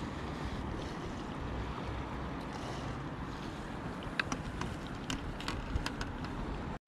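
Wind rumbling on the microphone at a lakeshore, with a scatter of light clicks and taps between about four and six and a half seconds. The sound cuts off abruptly just before the end.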